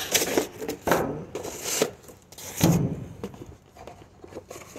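Cardboard shipping box being opened and handled: its flaps rustle and scrape in several short, irregular bursts, with a dull thump a little past halfway.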